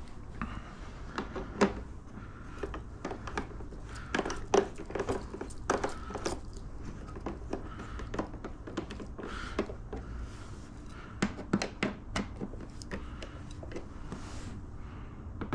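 Irregular small clicks and taps of a hand driver working the windshield bolts on a motorcycle fairing as they are turned in by hand.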